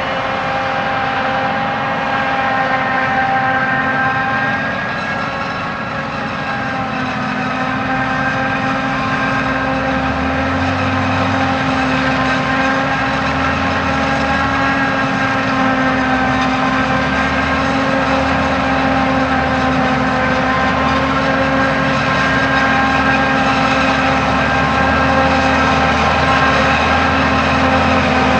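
Maize silage harvest machinery running steadily: a forage harvester and tractors give a heavy engine drone with a steady high whine of several tones above it. The sound grows slightly louder near the end.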